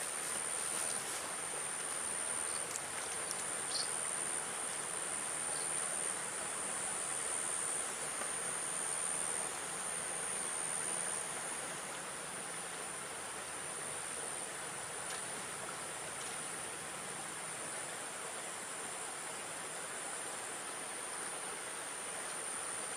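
Insects chirring in one steady, high-pitched drone over an even background hiss.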